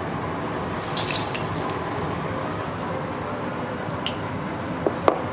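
Hot oil sizzling steadily in a kadai as urad dal vada batter deep-fries, with a brighter burst of sizzle about a second in as a piece of batter drops into the oil. A couple of short clicks near the end.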